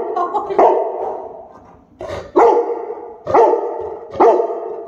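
Cane Corso barking: four barks about a second apart, each trailing off.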